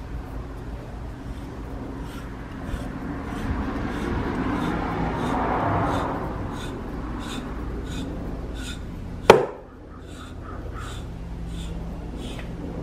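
Hand reamer turned in a T-handle tap wrench in a governor's shaft bore, scraping metal as it shaves off a few thousandths to ease a tight fit. The scraping swells for a few seconds, and a single sharp metal knock comes about nine seconds in.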